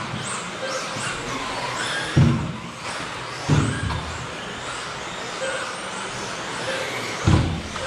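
Several 1/10-scale electric 2WD off-road RC buggies racing: high motor whines rise and fall in pitch as they accelerate and brake. There are dull thuds about two seconds in, three and a half seconds in, and near the end.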